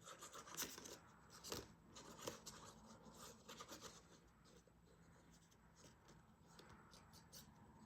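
Faint scratching and light ticks of a glue applicator tip being dragged over a cardstock cut-out as glue is spread across it, mostly in the first half.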